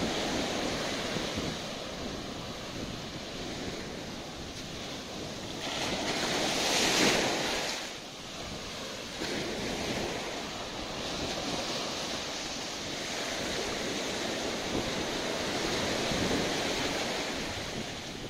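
Ocean surf breaking and washing up a sandy beach in a continuous rush, swelling to its loudest about seven seconds in as one wave comes in.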